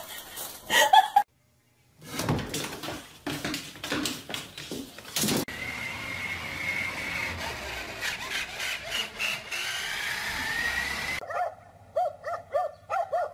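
Remote-control toy truck's small electric motor whining as it drives along, the pitch sliding up and down. Near the end, a run of short, sharp dog barks.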